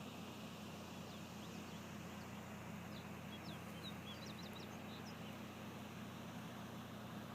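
Brief high, thin chirps of small birds, clustered in the middle, over a steady low hum and faint hiss.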